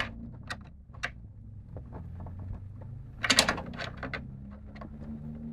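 Clicks and light knocks of cables and parts being handled inside a computer case, with a short burst of louder clattering about three seconds in.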